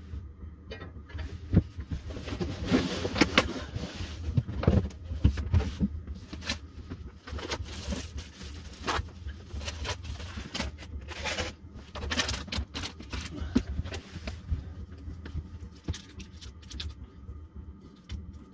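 Handling and rummaging noises: irregular rustling, scraping and knocking of things being moved about, with plastic food packaging rustling near the end, over a steady low hum.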